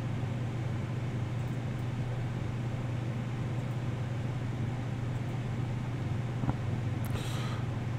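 Steady low hum with a faint even hiss: the background noise of the recording, broken once by a faint click about six and a half seconds in.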